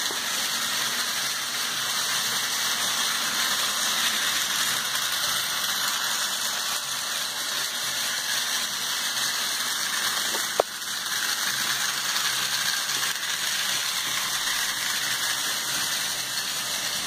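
Ferrorama toy D-51 locomotives running on plastic track: a steady whirring hiss of small electric motors and gearing, with one sharp click about ten and a half seconds in.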